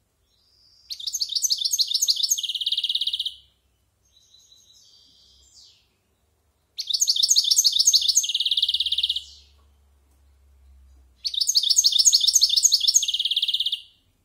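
European goldfinch, about a year old, singing as it goes over its song: three song phrases, each a fast run of repeated high notes ending in a buzzy trill, with softer twittering between the first two.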